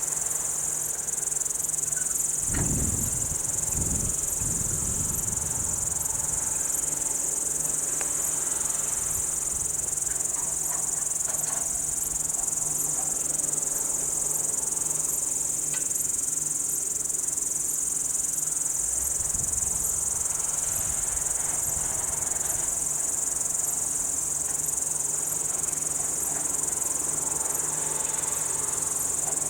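A chorus of many crickets stridulating: a dense, steady, high-pitched trill with no break.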